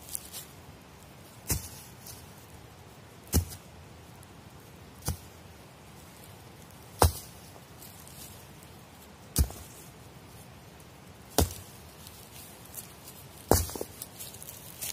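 Seven sharp knocks, about one every two seconds and a little uneven, over a faint steady hiss.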